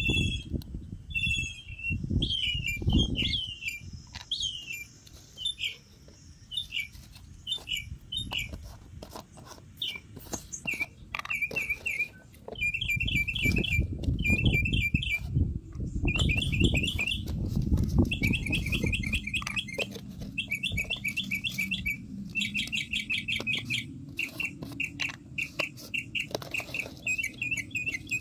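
Small birds chirping. The chirps come singly, about one a second, at first, then turn into rapid trilled bursts about a second long from around the middle on. A low rumble sits underneath.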